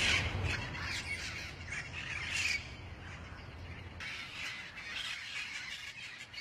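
Parrots squawking: a quick run of harsh calls for about two and a half seconds, then fainter, scattered calls. A low rumble runs underneath and stops about four seconds in.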